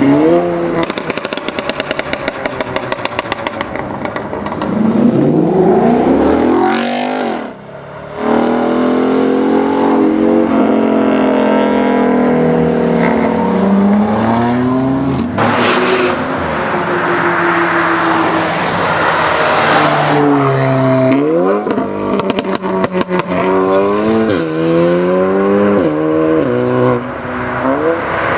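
Tuned Audi S3 sedan with a Milltek exhaust accelerating hard, the engine revving up and dropping back again and again through the gears. Rapid crackles and pops come from the exhaust as the revs fall.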